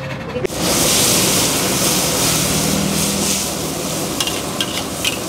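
Fried noodles (mie goreng) sizzling in a hot steel wok, a steady hiss that starts about half a second in. From about four seconds in, a metal spatula clinks and scrapes against the wok as the noodles are stirred.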